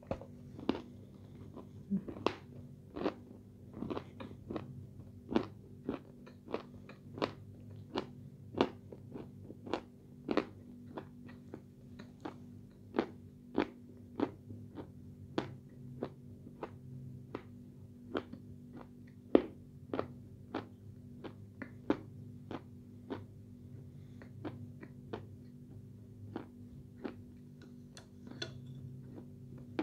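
Close-up chewing of crunchy edible clay, with sharp crunches coming about once a second, some louder than others.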